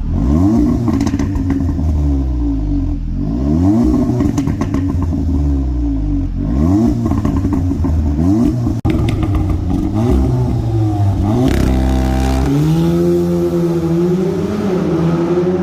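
Audi S3's turbocharged four-cylinder engine revving up and dropping back again and again through an exhaust with the resonators deleted, with crackles as the revs fall. Near the end the revs are held higher and climb slowly before falling away.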